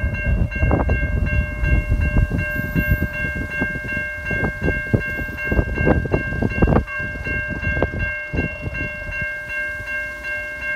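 Level crossing warning bells ringing steadily as a diesel XPT passenger train approaches slowly in the distance. Under the bells is an irregular low rumble with many short knocks.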